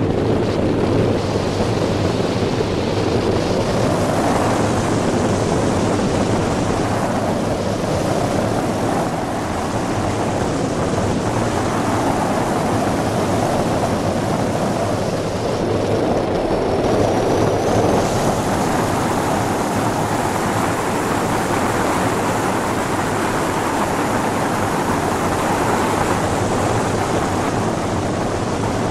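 Airflow rushing over the microphone in flight on a tandem hang glider: a steady, loud wind rush that swells and eases every few seconds.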